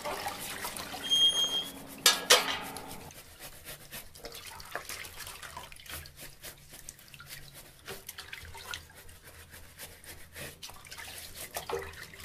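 Water splashing and dripping at a tap with scattered small clicks: clothes being washed by hand. A short high chirp comes about a second in, and a sharp knock just after two seconds.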